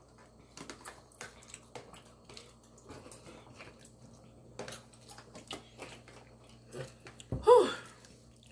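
Close-up chewing: soft, irregular mouth clicks and smacks of a person eating, over a faint steady hum. About seven seconds in, she lets out an exhaled "whew."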